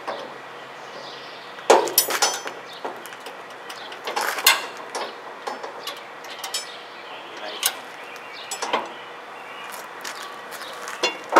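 Scattered metallic clicks and clanks of a steel trailer compartment's door latch and its hinged expanded-metal access panel being handled, with the loudest knock, ringing briefly, about two seconds in and lighter clicks after.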